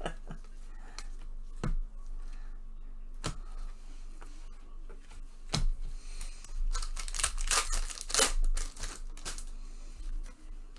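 Baseball card pack wrappers being torn open and crinkled while the cards are handled, with scattered light clicks and rustles and a longer, louder stretch of crackling about two-thirds of the way through.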